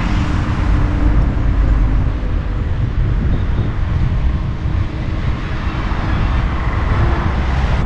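Steady road traffic noise from vehicles on a busy city flyover, with wind rumbling on the microphone.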